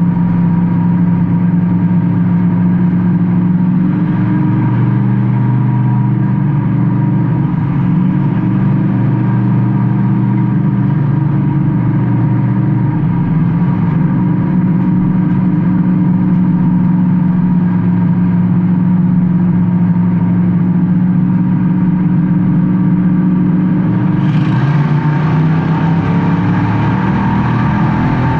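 Race car engine heard from inside the car, running hard with small rises and dips in pitch as it goes around the track. About 24 seconds in, a steady hiss joins the engine sound.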